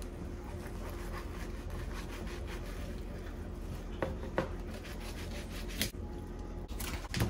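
Fillet knife cutting along the skin of a peacock bass fillet on a plastic cutting board, a steady scraping rasp as the blade saws between skin and meat to take the skin off. A few sharper clicks in the second half.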